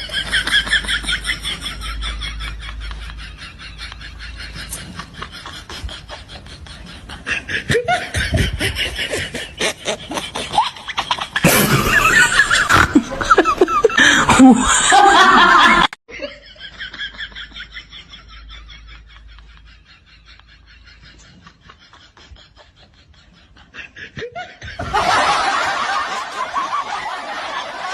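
People laughing, in rapid rhythmic bursts. It is loudest in the middle, cuts off suddenly about halfway through, and after a quieter stretch breaks out again loudly near the end.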